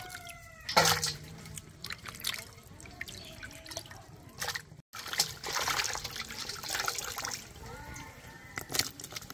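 Water splashing and dripping in short, irregular bursts, with one louder splash about a second in.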